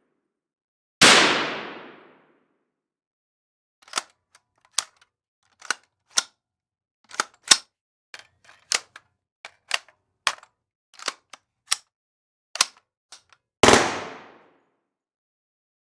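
Gunshot sound effects: a single loud shot with a fading tail about a second in, then a string of short, sharp, irregularly spaced clicks and clacks of varying loudness, and another loud shot with a fading tail near the end.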